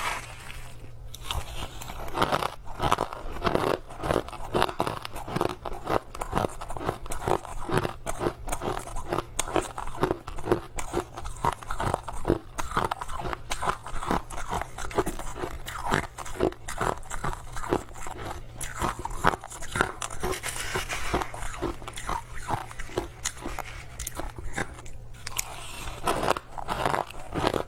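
Crushed ice being bitten and chewed close to the microphone: rapid, continuous crunching, several crunches a second.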